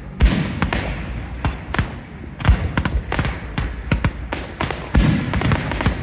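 Fireworks display: aerial shells bursting overhead in a rapid, irregular string of bangs and crackles. The loudest, deepest bangs come just after the start, about two and a half seconds in, and at five seconds.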